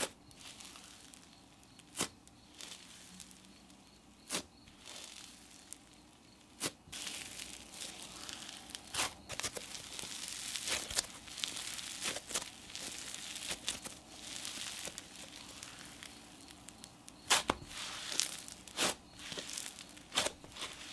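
Snow fizz slime being stretched, squeezed and pressed by hand, giving scattered sharp crunches and a crackling sizzle that grows busier about a third of the way in.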